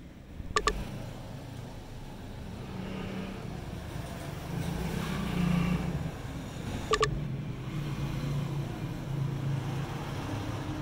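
A motor engine running with a low rumble that swells and eases off, with two short sharp clicks, one near the start and one about seven seconds in.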